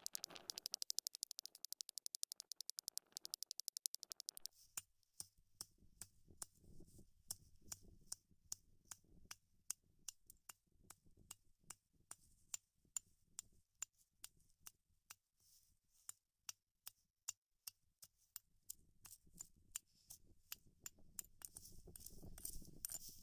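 Sharp stone flake cutting through palm-fibre broom bristles: a fast run of crisp snips, then faint, evenly paced snips about two or three a second.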